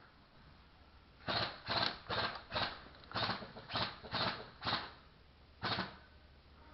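Footsteps crunching over the ground: eight quick steps at about two a second, then one more step about a second later.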